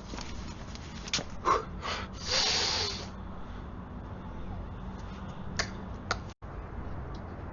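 A person sneezing: a few quick catching breaths and a short voiced cry, then a burst of breathy air, about one to three seconds in. Two faint clicks near the end.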